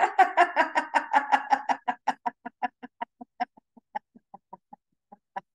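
A woman laughing on cue in a laughter-yoga exercise: a long run of short 'ha-ha' pulses, quick and loud at first, then slowing and fading, with one last pulse near the end.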